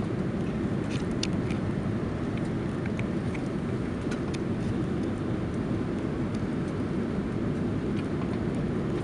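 Steady cabin roar inside an Airbus A330-200 on short final approach with flaps extended, engine and air noise. There are a few faint ticks or rattles in the first half.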